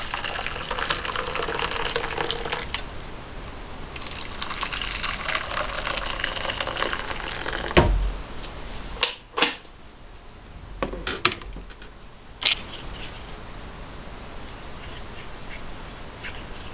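Water running and splashing in two stretches of a few seconds each, then several sharp knocks and clinks, like dishes or utensils being handled.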